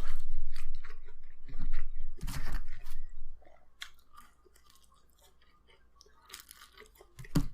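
A person chewing a mouthful of corn-topped pizza close to the microphone, with crunching bites in the first few seconds. The chewing goes quieter for a couple of seconds in the middle, then picks up again near the end.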